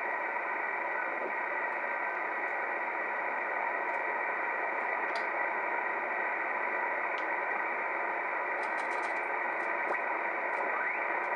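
R-390A tube communications receiver's speaker putting out steady band-limited hiss from the 20 meter band while it is tuned between stations. A few faint clicks come through, a quick cluster of them about nine seconds in, and near the end a whistle rises in pitch as a signal is tuned through.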